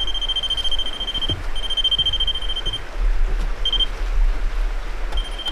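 Ghost-hunting proximity alarm sounding a steady high electronic tone in long beeps of over a second with brief gaps, a short blip midway, and another beep near the end. Faint footfalls thud on the wooden footbridge deck beneath it.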